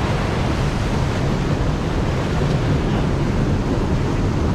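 Water rushing steadily over an overflow weir, a continuous even roar.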